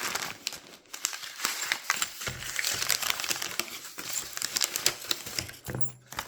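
Packaging crinkling and crackling as it is handled and pulled away by hand, with many small sharp crackles.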